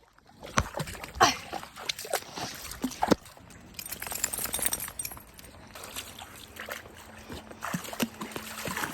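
Water splashing and sloshing in short, irregular bursts as a dog wades at the water's edge.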